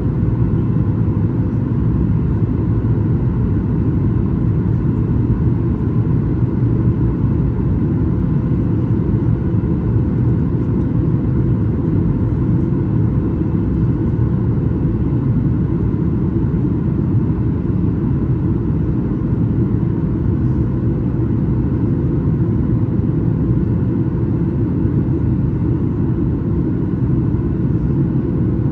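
Boeing 737 MAX 8 cabin noise: a steady, loud rumble of the CFM LEAP-1B engines and airflow, with a faint steady hum, heard from a seat behind the wing.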